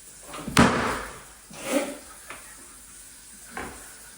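A sharp bang about half a second in, followed by a few softer knocks and clunks.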